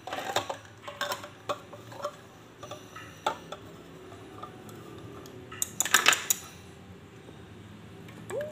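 Hand-held can opener cutting around the lid of a tin can of cream: a run of short metallic clicks and scrapes, then a louder clatter of metal about six seconds in.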